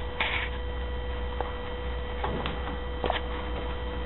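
Steady electrical hum with a few faint, short clicks scattered through it; no shots are fired.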